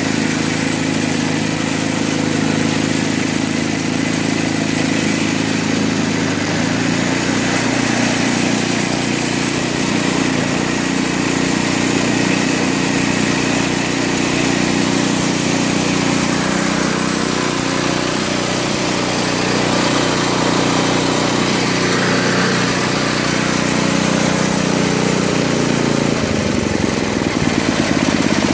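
Toro 521 snowblower's 5 hp Tecumseh single-cylinder engine running. It speeds up about six seconds in and holds steady; near the end its pitch wavers and drops. The auger drive is not engaging, because its engagement linkage is slack.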